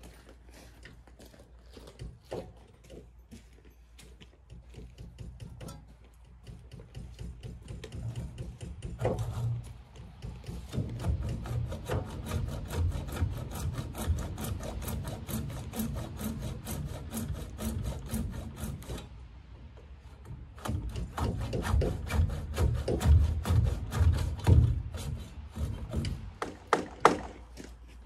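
Handsaw cutting through a wooden board with quick, even back-and-forth strokes, in two long bouts with a short pause between.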